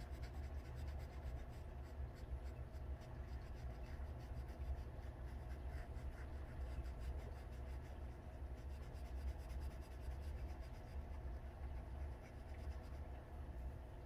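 Acrylic paint marker tip dabbing and scratching against a small wooden part, a run of faint fine ticks over a steady low hum.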